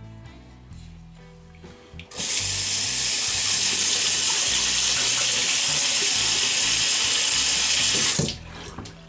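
Water tap running full into a bathroom sink, turned on about two seconds in and shut off about six seconds later. Background music plays quietly under it.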